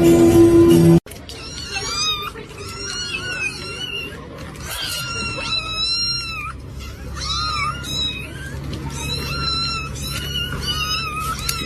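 Kitten mewing over and over in short, high-pitched cries that come in clusters, over a low steady background hum. Background music cuts off suddenly about a second in.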